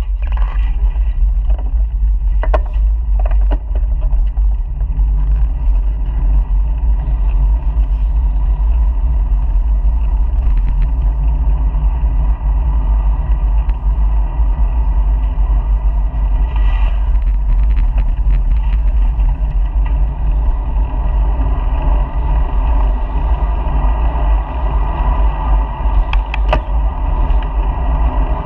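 Steady rumble of wind and riding noise on a bicycle-mounted GoPro camera during a ride, with a few brief rattles.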